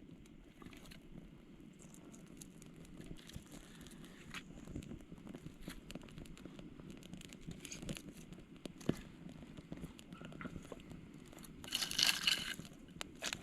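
Dry kindling being handled and laid on a campfire: scattered small crackles and rustles, with a louder crunching rustle near the end.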